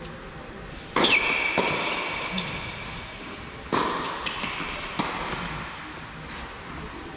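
Tennis rally on an indoor hard court: the ball struck by rackets and bouncing, each hit echoing around the hall. The two loudest hits come about a second and nearly four seconds in, with fainter hits and bounces between.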